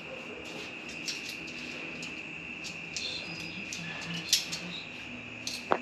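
Light clicks and knocks of food and utensils being handled as a chicken wrap is assembled, with two sharper clicks near the end, over a steady high-pitched drone.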